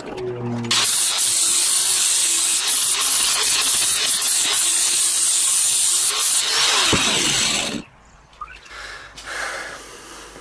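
Handheld angle grinder grinding the mushroomed edge of a steel axe head clamped in a bench vise: a loud, steady hiss of abrasive wheel on steel that starts about a second in. It cuts off about eight seconds in, leaving quieter handling sounds.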